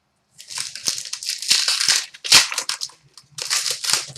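Crinkling of a trading-card pack wrapper being handled and torn open, in three bursts of crackle.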